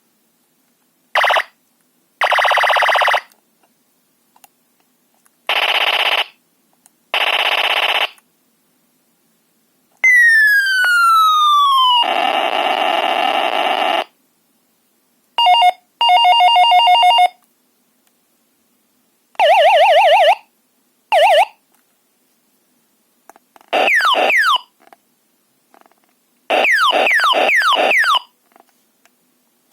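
1989 New Star Corp. Bichorn electronic sound effects toy playing a series of short synthesized effects with pauses between them. The effects include buzzy bursts, a long falling whistle followed straight away by a burst of noise, warbling siren-like tones, and quick falling chirps near the end.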